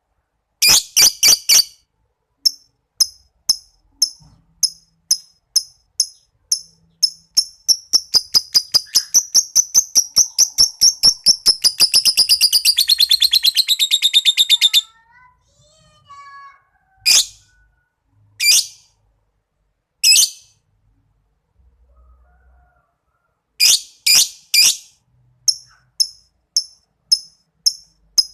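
Lovebird calling: sharp, high, evenly repeated chirps that speed up into one long continuous trill about 8 seconds in, lasting several seconds. A few longer, harsher calls and more spaced chirps follow. The long trill is the bird practising 'ngekek', the sustained chattering song that lovebird keepers train for.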